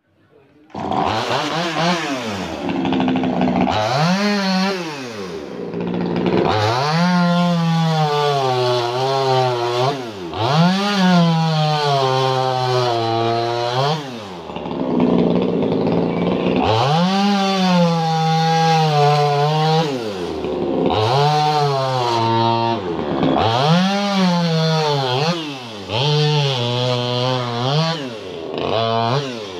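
Two-stroke chainsaw cutting through cow bone, its engine starting about a second in and then revving up and falling back in pitch over and over, every two to three seconds, as it meets and clears the bone.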